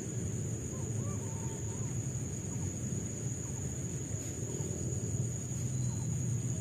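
Insects trilling steadily in a high, fast-pulsing tone over a loud, even low rushing noise, with a few faint short chirps.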